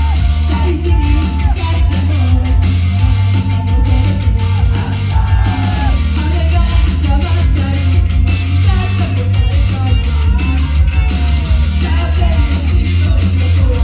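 Idol group performing live: women's voices singing into microphones over a loud, guitar-driven rock track with heavy bass, played through the club's PA.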